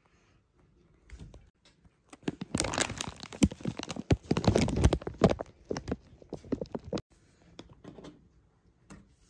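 Thin clear plastic food container crinkling and clicking as it is handled, with a dense run of crackles in the middle.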